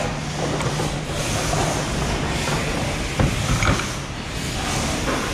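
Steady hum of a motor-assembly factory floor, with a couple of short clanks of parts or tools a little past three seconds in.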